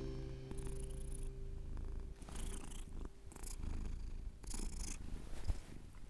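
Domestic cat purring steadily, with a few short breathy hisses.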